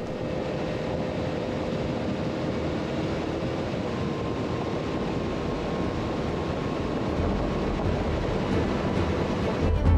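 Motorcycle riding at road speed: steady wind rush over the microphone, with a faint steady engine tone underneath. Music comes in just before the end.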